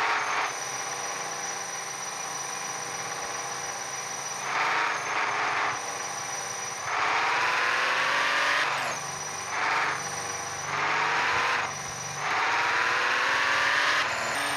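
Small electric motor of a toy car whining steadily, speeding up several times with a rising pitch.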